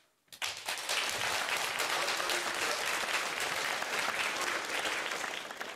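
Studio audience applauding: a burst of many hands clapping that starts suddenly after a brief pause and tapers off near the end.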